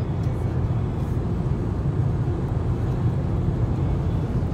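Steady low road rumble of a car driving at highway speed, heard from inside the cabin.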